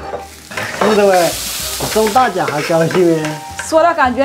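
Chopped vegetables sizzling in hot oil in a large wok, stirred with a metal spatula, with a louder burst of sizzling about a second in.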